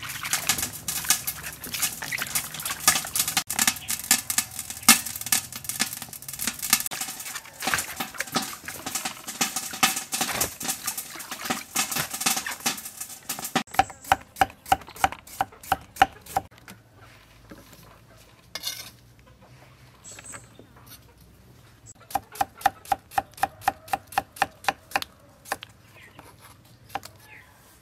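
Hands sloshing and rubbing cabbage and cucumbers in a basin of water, with steady splashing. About halfway through this gives way to a cleaver chopping on a wooden chopping block as carrot and then cucumber are sliced, in quick runs of about four or five strokes a second with short pauses between.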